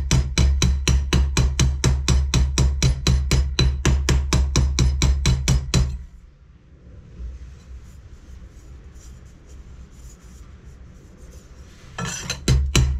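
Wooden mallet hammering the weld area of a homemade sheet-steel expansion-chamber cone held against a bench vise, in rapid even blows about five a second. The blows stop about six seconds in and start again near the end.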